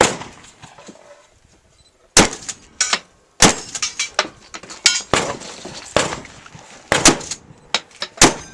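Shotgun fired in rapid succession during a timed match stage: one shot, a pause of under two seconds, then about nine more shots at intervals of half a second to a second, each with a short ringing tail.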